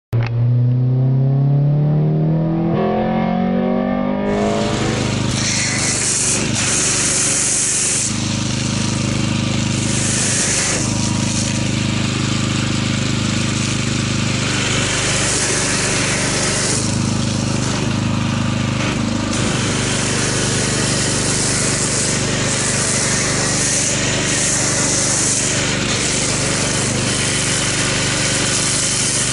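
Pressure washer motor and pump running steadily while a foam cannon sprays soap foam, with a hiss that swells and drops as the trigger is squeezed and released; the washer is running lazily, low on pressure. In the first few seconds, before the spraying, there is a rising hum.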